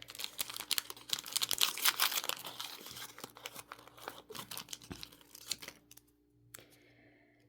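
Small plastic baggie crinkling and being torn open by hand, a rapid crackle that stops about six seconds in.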